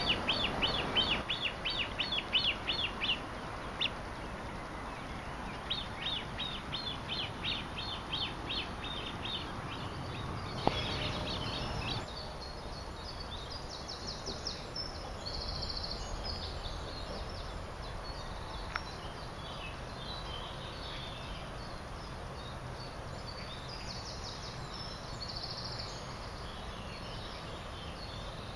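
Songbirds singing over a steady outdoor hiss: a rapid run of repeated chirps, about five a second, at the start and again a few seconds later, then more varied, higher twittering through the rest.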